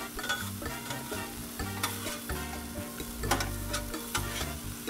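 Diced ribeye sizzling on a Blackstone flat-top griddle as two metal spatulas toss it, with several sharp clicks and scrapes of the spatulas against the steel griddle plate over a steady frying hiss.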